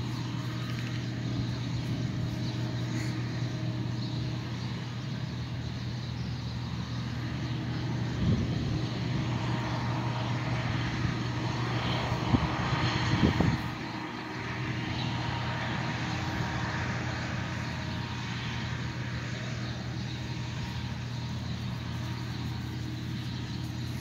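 Steady engine drone of farm machinery working a corn harvest, a low, even hum with a couple of brief knocks about eight and thirteen seconds in.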